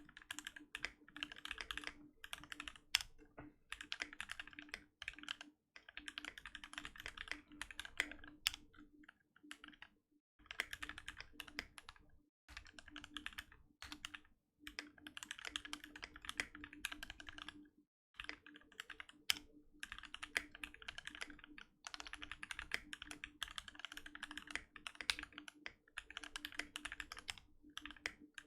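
Keychron Q1 mechanical keyboard with Gateron Phantom Red linear switches, PBT keycaps and a tape mod being typed on fast, in runs of quick keystroke clicks broken by short pauses now and then.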